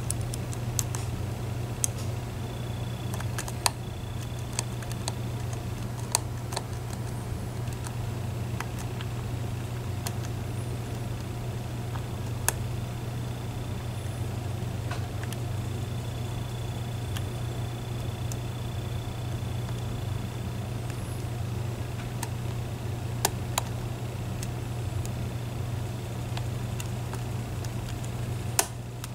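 Lock pick and tension wrench working the pins of a Medeco Biaxial cylinder lock: small, irregular metal clicks a second or two apart over a steady low background hum.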